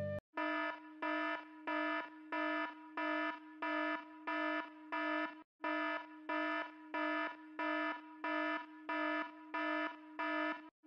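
Electronic alarm beeping in an even rhythm, about two beeps a second, each a low buzzer-like tone; the beeping stops briefly about halfway through and then resumes at the same pace.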